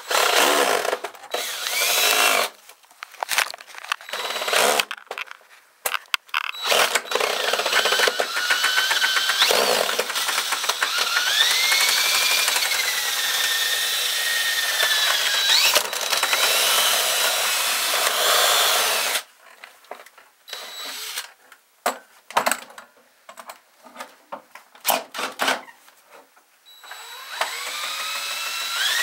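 Cordless drill spinning a drum drain auger (drain snake), run on the trigger in bursts. There is a long run in the middle with the motor whine rising and falling in pitch as the speed changes. Later come short stop-start pulses, and a steady run starts again near the end.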